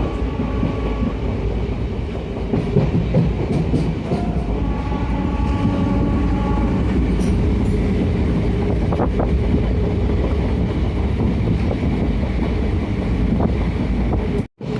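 Passenger train running at speed, heard from inside the coach: a steady rumble of wheels on the rails with some clickety-clack and a few faint knocks. The sound cuts out briefly near the end.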